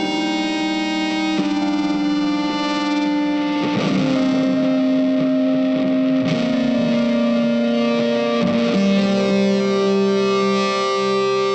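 Background music: distorted electric guitar playing long held notes that change every second or two.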